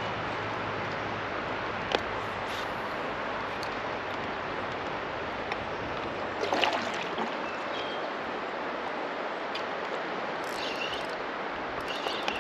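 Steady rush of flowing river water, with a sharp click about two seconds in and a few brief louder sounds around the middle.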